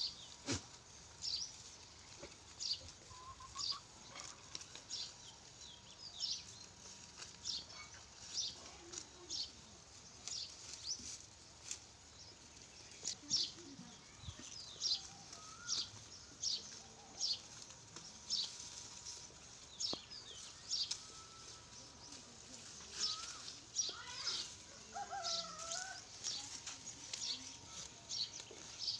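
Dry fodder stalks rustling and crackling in short, irregular bursts, about one or two a second, as goats tug and tear at a hanging bundle.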